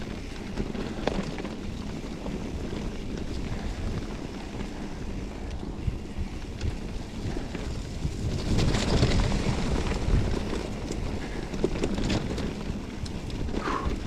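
Wind buffeting the microphone of a camera riding along on a mountain bike down a dirt flow trail, over a steady rumble from the tyres and the ride. Scattered small clicks and rattles run through it, and it grows louder for a stretch about nine seconds in.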